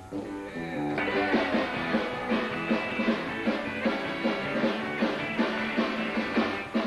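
Live country band playing with electric guitars, bass, keyboard and drums; the music fills out about a second in and settles into a steady beat.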